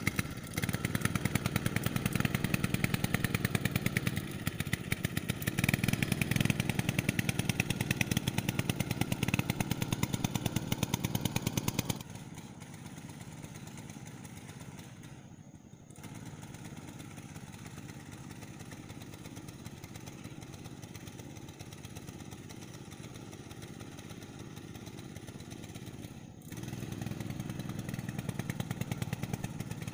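Small outboard motor on a homemade drum pontoon boat, running steadily with a fast, even beat. It drops to a fainter level about twelve seconds in as the boat moves away, then grows louder again near the end as it comes back.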